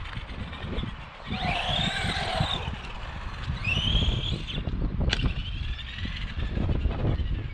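Arrma Granite 4x4 Mega RC truck's brushed electric motor whining, rising and falling in pitch twice as it speeds up and slows, over a low gusty rumble of wind and tyres on concrete, with a sharp tick about five seconds in.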